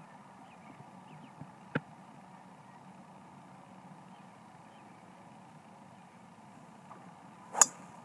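A golf ball struck by a metal wood: one sharp crack of impact near the end, over a steady faint background hum. A lighter tick sounds about two seconds in.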